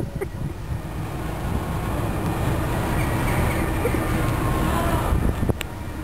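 Steady low rumble of a small open canal boat under way, mixed with wind on the microphone. A single sharp click about five and a half seconds in.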